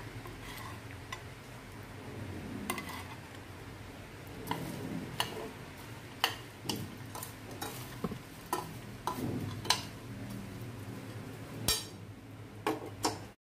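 A metal spoon stirring a dry mix of nuts and raisins on a plate, with irregular clinks and scrapes of the spoon against the plate. The sound cuts off suddenly near the end.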